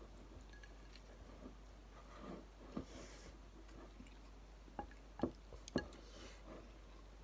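Wooden chopsticks stirring and picking through noodles in a ceramic bowl of ramen broth, with soft wet sloshing and a few light clicks against the bowl, the sharpest three coming in quick succession about five to six seconds in.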